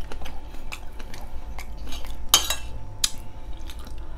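Metal spoon clinking and scraping against a plate while food is scooped up, with a few sharp clinks, the loudest about two and a half and three seconds in.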